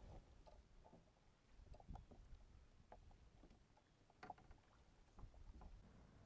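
Faint knocks and clicks of someone moving about in a kayak, with a few low thumps against the hull; otherwise near silence.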